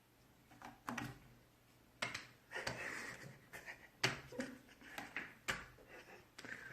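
Several sharp knocks and taps, about four spread over a few seconds, with some rustling between them.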